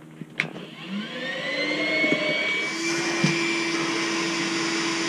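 Vacuum cleaner switched on with a click; its motor whine rises in pitch as it spins up, then runs steadily.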